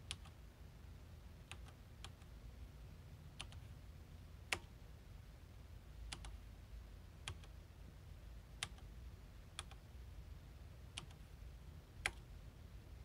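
Slow, scattered key presses on an aged Esprit 125C terminal keyboard, about a dozen single clicks at irregular intervals as a login is typed. A faint steady low hum runs underneath.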